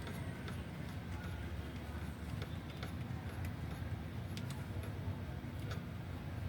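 Scattered light clicks and taps from handling computer parts, over a steady low rumble.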